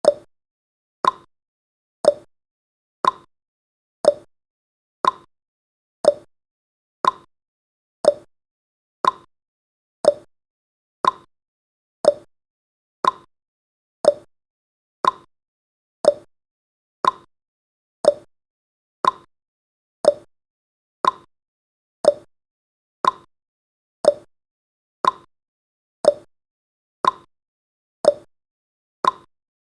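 Countdown timer's tick sound effect: a short, sharp tick repeating evenly once a second, marking each second of the countdown.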